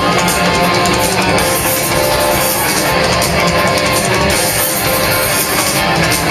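Rock band playing live, a guitar-led instrumental passage with drums and no singing, loud and steady throughout.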